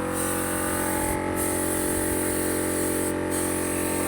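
Air compressor running steadily while a paint spray gun hisses, the spray cutting out briefly three times as the trigger is let off.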